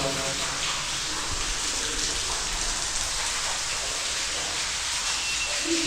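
Steady hiss of falling and splashing water in a cave, like heavy rain on rock.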